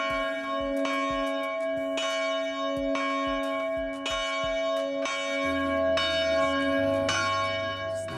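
Church bells ringing, struck about once a second, with each stroke hanging on in a long, overlapping ring.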